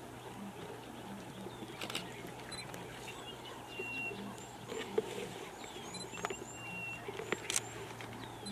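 Lions feeding on a buffalo carcass: scattered crunches and cracks of bone and tearing flesh as they chew. Small birds chirp in the background over a steady low hum.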